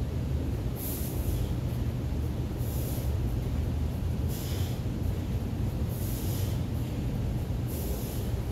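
A man's sharp exhales, five in all at about one every second and three-quarters, in rhythm with kipping pull-ups on a bar, over a steady low rumble.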